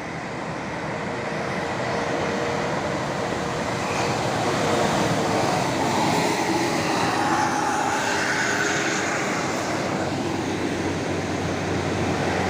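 A large tour bus's diesel engine and tyres as it drives past, a heavy steady rumble that swells over the first few seconds and then holds.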